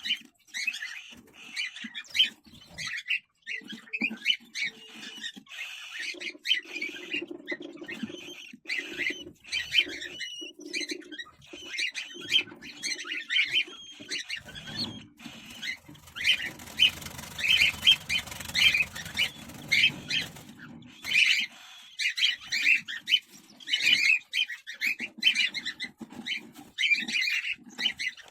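Cockatiels calling in rapid, short chirps one after another, with a stretch of rustling, scraping noise about halfway through.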